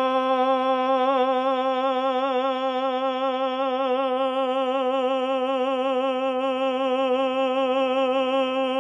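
A man's voice holding a single sung middle C as a long-tone breath-support exercise: one unbroken, steady note at average volume, with a gentle vibrato.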